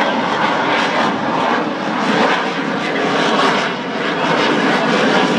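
Military jet flying past, its engine noise loud and steady throughout.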